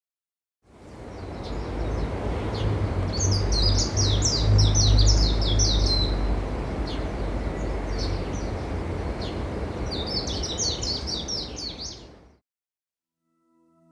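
Small birds twittering in two bursts of rapid high chirps, over a steady low rumble of wind and surf. The sound fades in shortly after the start and cuts off near the end.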